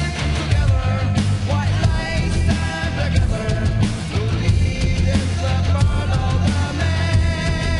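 1987 glam metal recording playing loud and continuous: electric guitars, bass and a drum kit.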